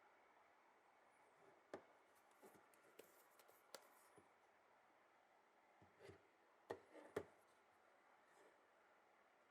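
Faint handling sounds of unboxing in-ear earphones and their packaging: scattered light clicks and taps with a brief rustle in the first half, and a quick cluster of sharper clicks a little after the middle.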